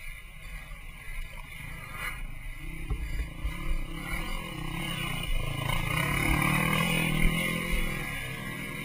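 Dirt bike engine revving on an off-road trail, swelling to its loudest about six to seven seconds in, then easing off.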